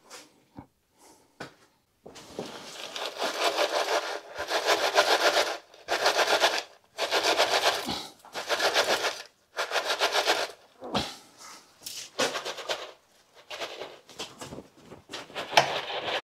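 Gritty scraping and rubbing of coarse bonsai soil as a tree's root ball is settled into its pot, in a series of rough scrapes, the longest about three seconds, with shorter ones toward the end.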